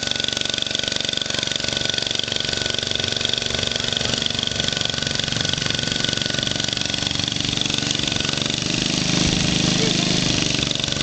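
Cub Cadet 108 garden tractor's single-cylinder Kohler engine running steadily under load while pulling a plow through garden soil, growing a little louder near the end.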